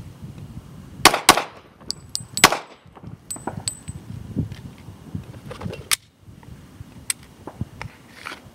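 Springfield Armory XDm .40-caliber service pistol fired three times in a failure drill: a quick double tap about a second in, then a single head shot about a second later. A few light metallic clinks follow the shots.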